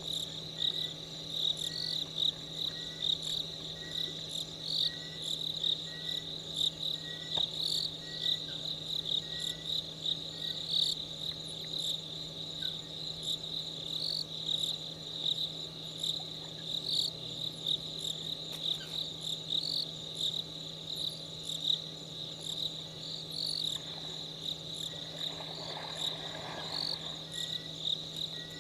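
Night insects, crickets, chirping steadily in a high trill that pulses about once a second, with a softer chirp repeating in the first half and a steady low hum underneath. A brief rush of noise rises and fades about 25 seconds in.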